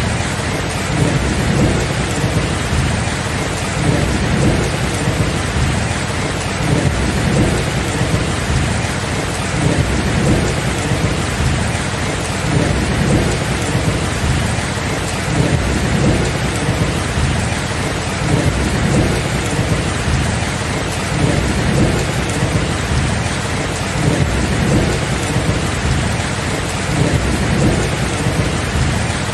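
Steady rain with low rumbling thunder that swells and fades.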